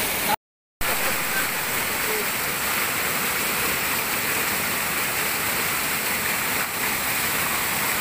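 Small waterfall pouring over rocks: a steady rush of falling water, cut by a brief total dropout about half a second in.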